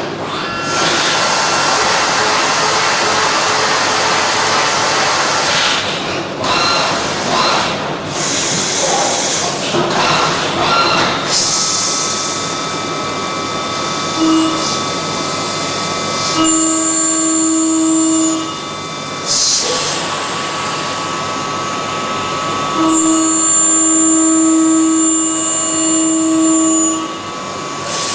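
CNC machine tool cutting metal. Stretches of loud, dense cutting and coolant noise give way to a steady whine with clear held tones that starts and stops in blocks of a few seconds as the cutter engages and leaves the workpiece.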